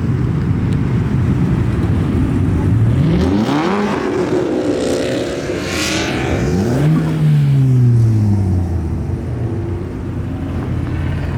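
Car engine revving as a car accelerates past: the pitch climbs about three seconds in, climbs again near the middle where it is loudest, then falls away over the next couple of seconds.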